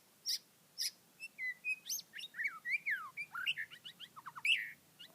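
Small birds chirping. A few short, sharp high chirps come first, then from about a second in a quick run of varied twittering notes that slide up and down in pitch, loudest near the end.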